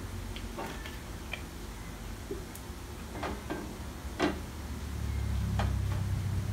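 Scattered light clicks and taps of kitchen handling as cooking oil is poured into a nonstick frying pan and the oil bottle is put down, the loudest a little after four seconds. A low steady hum grows louder about five seconds in.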